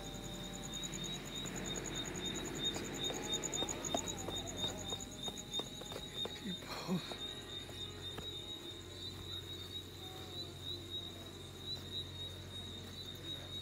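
Crickets trilling without a break, a steady high pulsing trill. Faint voices and a few light knocks sit underneath.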